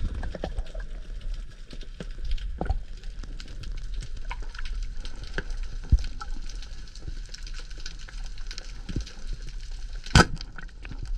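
Underwater ambience heard through the camera: a steady crackle of many fine clicks, with a sharp knock about six seconds in and a louder one near the end.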